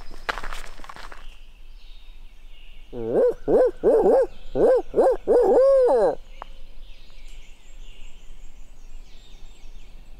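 A series of about eight loud owl hoots, each rising then falling in pitch, the last one drawn out, in the barred owl's 'who cooks for you' rhythm: a turkey hunter's owl locator call meant to make a gobbler shock-gobble. Footsteps in leaves come just before, and faint songbirds after.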